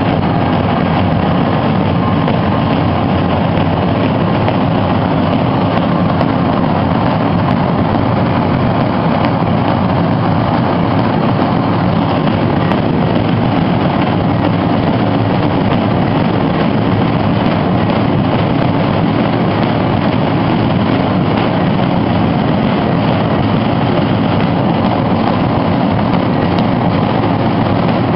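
Many large bass drums beaten together by marching drummers, merging into a loud, steady, dense rumble with no single beats standing out.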